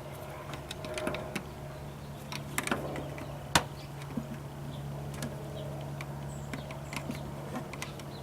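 Scattered sharp clicks and taps from a plastic exterior vent cover being handled, the loudest about three and a half seconds in, over a steady low hum.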